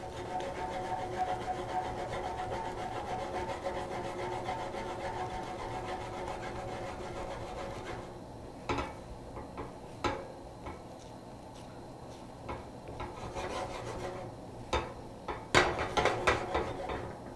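Silicone spatula stirring and scraping scrambled eggs around a hot nonstick pan, a soft steady rubbing. The steady hiss under it drops away about eight seconds in, and a few short knocks of the spatula against the pan come near the end.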